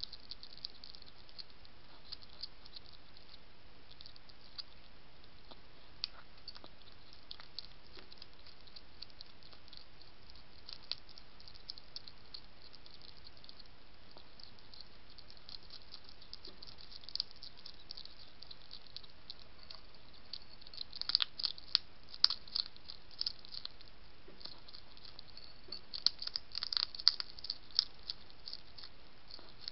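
European hedgehog chewing dry food pellets from a plate, with small clicky crunches throughout and louder bursts of crunching about two-thirds of the way through and again near the end, over a steady hiss.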